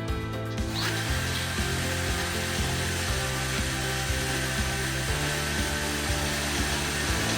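Power drill boring out the outlet hole in the metal wall of a mulled wine warmer. It starts about a second in and runs steadily with a high whine, over background music.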